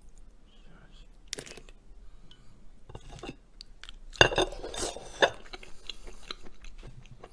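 Hard clinks and clicks of seafood shells and utensils knocking against a dish, with two sharp, loud knocks about four and five seconds in.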